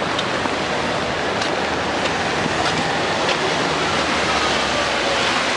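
Rain falling steadily on wet pavement and road, a constant hiss, with traffic running on the wet street.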